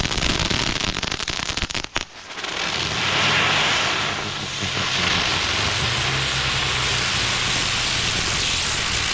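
Consumer ground fireworks crackling and popping rapidly for about two seconds, then a steady hissing rush with a low hum beneath it.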